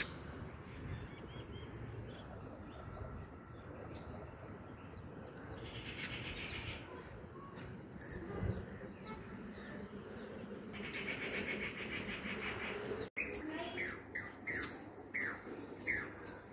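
Jacobin cuckoo (pied cuckoo) calling: a run of short whistled notes, each falling in pitch, about two a second, starting about thirteen seconds in. Before that, faint high chirps and two spells of a rapid buzzing trill.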